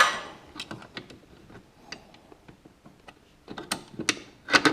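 Metal brackets clinking and knocking as they are handled and fitted onto a jack-plate support: a sharp clank at the start, scattered light clicks, then a quicker run of clicks and knocks near the end.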